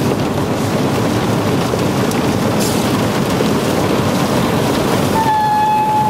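Flash-flood water rushing and churning past the car, with rain on the car, heard from inside as a loud, steady roar. A steady high tone sounds for about a second near the end.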